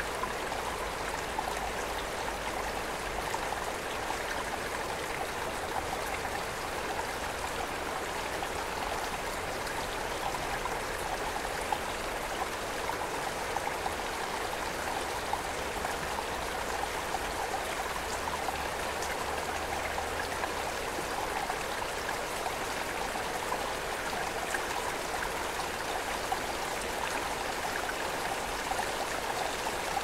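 Steady rush of a flowing river, an even wash of moving water with no break or change.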